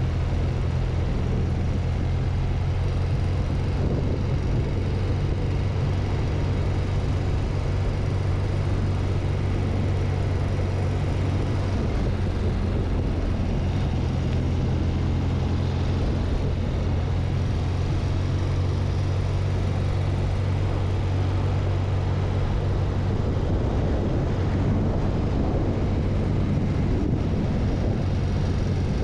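BMW R100 CS air-cooled 980 cc flat-twin boxer engine running at a steady cruise while riding, with no revving or gear changes.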